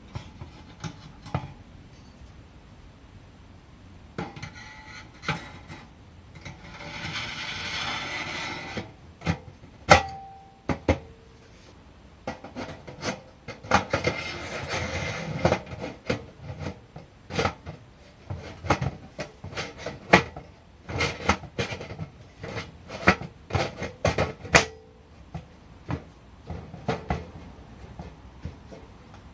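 Thin 1 mm titanium panels of a folding tent stove being fitted into its frame: many light metallic clacks and knocks, with two stretches of scraping as the panels slide into their slots, and a couple of short rings from the sheet metal after a knock.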